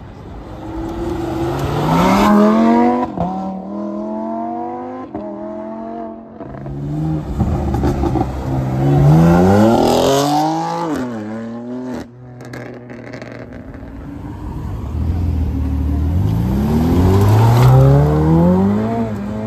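Three sports cars accelerate hard away one after another, each engine revving up in a rising sweep. First a Lamborghini Huracán's V10 with quick upshifts, then a BMW M4's twin-turbo inline-six, then a Ferrari's twin-turbo V8 near the end.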